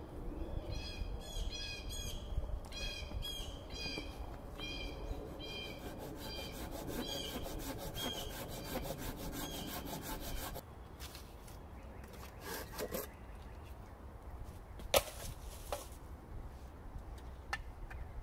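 Hand saw cutting through a wooden post in steady back-and-forth strokes, about two a second, stopping about ten seconds in. A single sharp knock follows a few seconds later.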